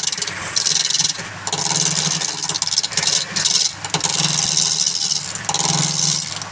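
Wood lathe motor humming steadily while a turning tool cuts the spinning wood in a series of passes, each pass a hiss of about a second that starts and stops.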